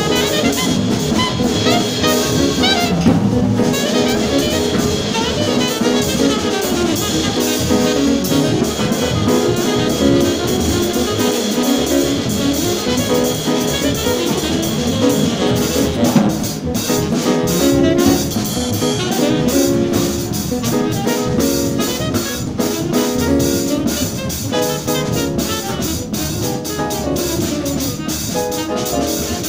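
Acoustic drum kit played with sticks along to a jazz recording of saxophone, piano and double bass. Busy snare, tom and cymbal strokes run over the steady band.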